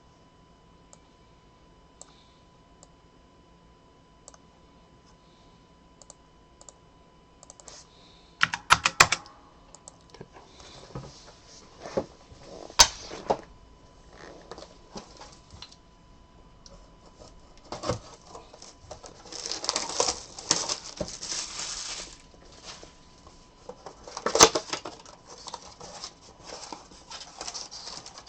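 Cardboard and foil card-pack wrappers being torn open and crinkled while a Panini Prizm basketball blaster box is opened: a few faint ticks at first, then irregular bursts of tearing and crackling, the longest dense stretch about twenty seconds in.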